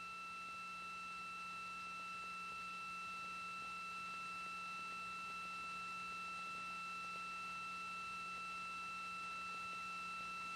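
Steady electronic tone on the audio feed: a few fixed pitches held without change over a low hum.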